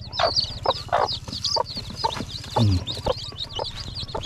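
Young chicks peeping rapidly and without pause in high, thin cheeps, with a mother hen clucking among them. A few knocks of bamboo slats come as the coop gate is moved.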